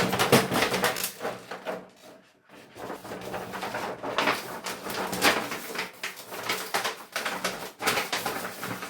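Broken pieces of TV plastic being gathered up and handled: a run of irregular clicks, clatters and rustles, with a brief pause about two seconds in.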